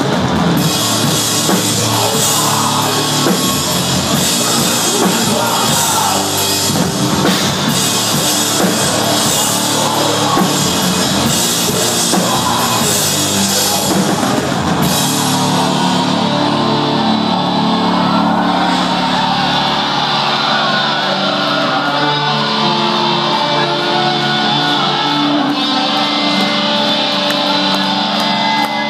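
Live metalcore band playing loud: distorted guitars and a pounding drum kit with crashing cymbals. About halfway through the drums drop out, leaving sustained chords ringing.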